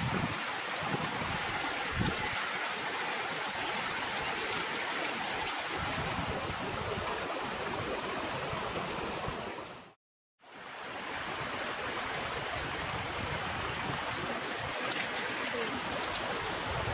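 Steady rushing of a shallow rocky creek, cutting out for a moment about ten seconds in.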